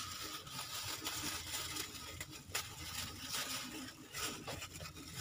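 Banana peels and leaf scraps rustling as hands gather them up, with a few light taps and knocks.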